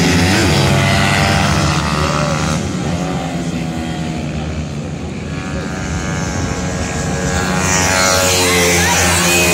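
Several 160 cc pit bikes racing past, their four-stroke single-cylinder engines revving high with overlapping pitches rising and falling. The noise eases around the middle as the bikes move off, then swells again near the end as more bikes come by.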